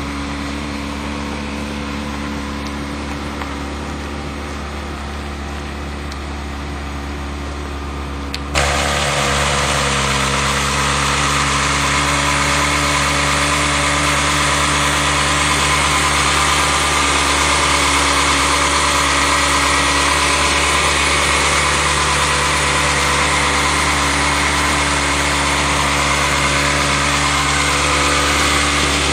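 Ferrari 360 Modena's 3.6-litre V8 idling steadily. About eight seconds in, the sound jumps to a louder, fuller, closer recording of the same idle, heard over the open engine bay.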